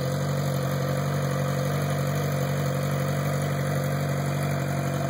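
2011 Suzuki GSX-R600's inline-four engine idling steadily through its exhaust, with no revs.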